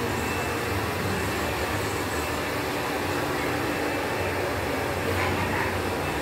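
Salon hair dryers running, a steady noise with a low hum underneath.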